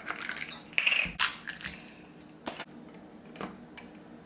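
A few light clicks and taps of small hard objects being handled, a glass straw and a drink cup, with a cluster of knocks about a second in and single taps after.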